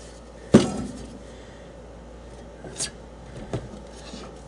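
Metal parts of an electric motor, the end bell and rotor, knocking on the workbench as they are pulled apart and set down: one sharp knock about half a second in, then two lighter clinks.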